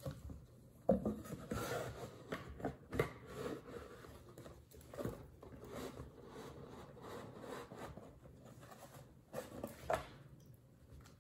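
Handling sounds of lithium pouch cells being slid into a plywood box: soft scraping and rustling with a few light knocks, bunched about a second to three seconds in and again just before the end.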